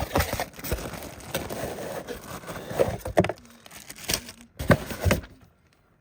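Crinkling and rustling of packaging as the expandable garden hose is unpacked by hand, followed by several sharp knocks and clatters.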